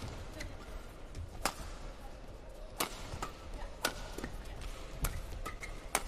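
Badminton rackets striking the shuttlecock in a fast doubles rally: five sharp hits, about one a second, with fainter ticks between them.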